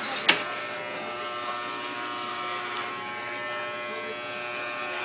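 Corded electric hair clippers running steadily, with one sharp click about a third of a second in.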